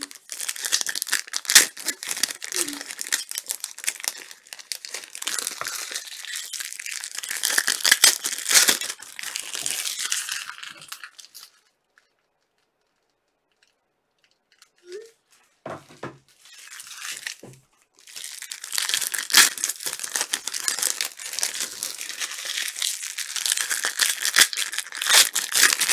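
Topps Chrome trading-card pack wrappers crinkling and tearing as packs are ripped open and the cards handled, in two long stretches with a pause of a few seconds near the middle.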